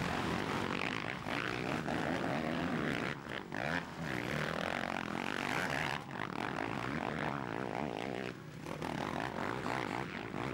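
Motocross bike engines revving hard as the bikes race past, their pitch rising and falling with the throttle and gear changes.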